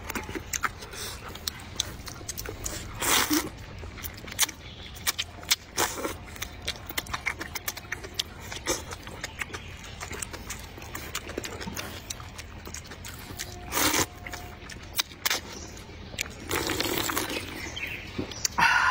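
Close-up slurping of thick rice noodles and wet chewing with lip smacks, making many small clicks. Several louder slurps stand out: about three seconds in, about fourteen seconds in, and a longer one near the end.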